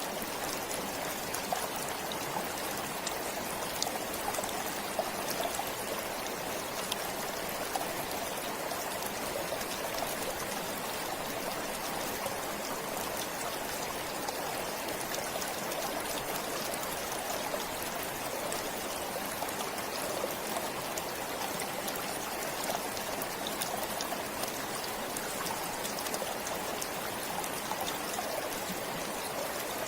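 Forest stream flowing steadily: a constant rush of water with small trickling splashes throughout.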